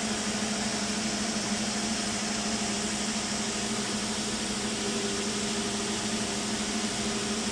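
Slitter rewinder running steadily as it slits coated paper into narrow strips and rewinds them onto small rolls: a constant low hum under an even hiss.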